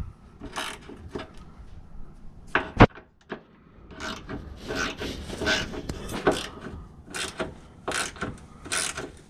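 Hand socket ratchet on an extension tightening a transmission mount bolt, its pawl clicking in irregular bursts of strokes. A single sharp knock comes a little under three seconds in.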